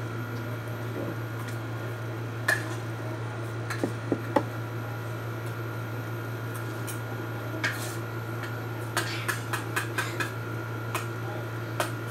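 Scattered light clicks and clinks of small things being handled on a kitchen counter over a steady low hum, with a couple of sharper knocks about four seconds in and a quick run of clicks around nine to ten seconds.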